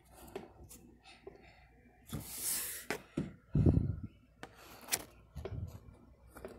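Window-blind slats clicking and rustling as they are pushed aside by hand, with a hissing scrape about two seconds in and a few dull knocks a moment later, the loudest sounds.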